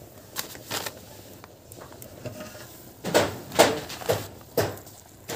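Steel plate used as a lid lifted off a pot on a wood-fired chulha, clinking and knocking several times; the loudest knocks come about three seconds in.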